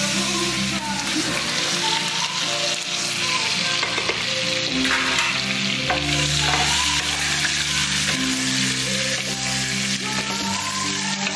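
Bavette steak searing in a very hot pan: a steady frying sizzle.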